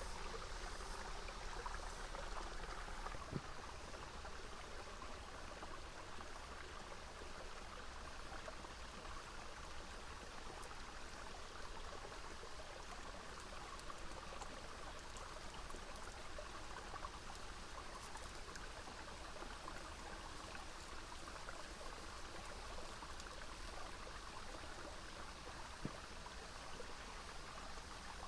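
Small river flowing steadily, with a faint click about three seconds in and another near the end.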